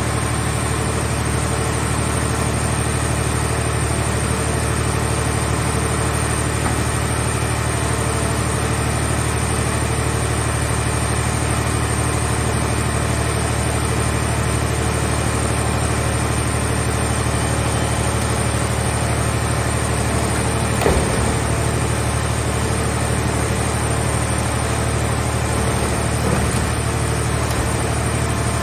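Engine of a hydraulic car-shell baler running steadily at a constant speed, with a brief knock about three quarters of the way through.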